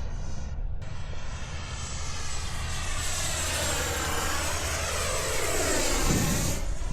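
Electric ducted-fan RC model jet passing by. Its high fan whine builds and sweeps, loudest about six seconds in, over a steady low rumble of wind on the microphone.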